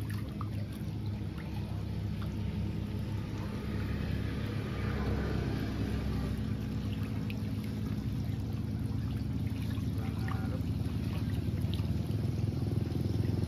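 Water pouring and trickling steadily, with a steady low hum underneath.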